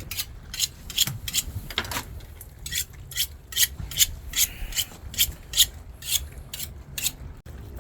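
A knife scraping over a fish in quick rasping strokes, about three a second, as if scaling or cleaning the fish.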